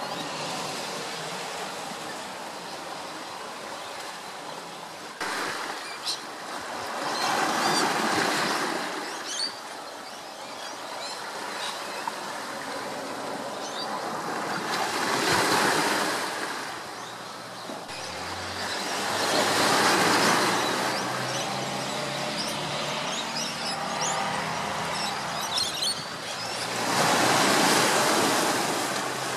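Continuous outdoor rushing noise that swells and fades four times, each rise lasting a few seconds, with a few faint short chirps or ticks.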